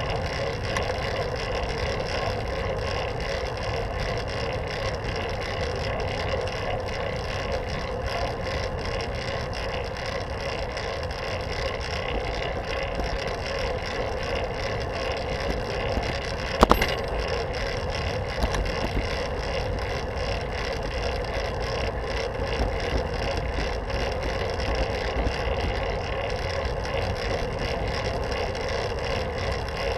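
Steady tyre and wind noise of a fixed-gear bicycle rolling along pavement, picked up by a camera mounted on the handlebars. A single sharp knock comes a little past halfway.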